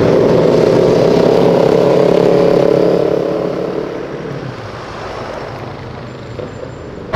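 Motorcycle engines passing on the street, a loud steady engine note that fades away after about three seconds.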